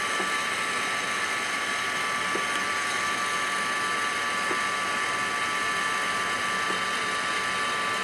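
A steady mechanical drone with several high, even whining tones that hold unchanged throughout.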